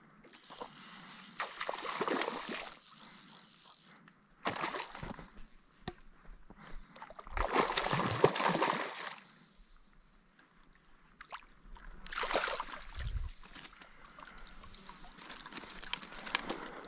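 Water sloshing and splashing in several irregular bursts, with quieter stretches between them.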